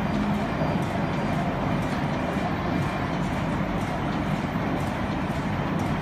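Steady din of factory machinery running, a continuous even noise with no separate strokes or beats.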